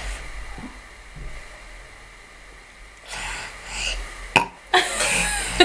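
A young girl burping on demand: quiet at first, then a burp in the second half, with a sharp click just after it.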